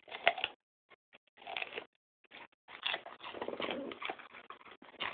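Dog chewing and crunching into a raw pumpkin: wet biting in irregular bursts with short pauses, then a longer, busier stretch of chewing from about three seconds in.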